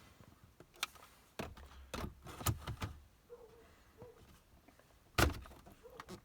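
Hard plastic parts knocking and clicking as a cup holder frame is pushed and pried into a car's rear armrest: scattered clicks, a run of knocks with dull thuds in the middle, and one loud sharp knock about five seconds in.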